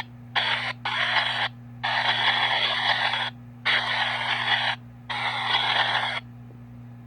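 PXB 07 spirit box sweeping through radio stations: about five bursts of static and chopped radio fragments, each half a second to a second and a half long, broken by short gaps. A steady low hum runs underneath.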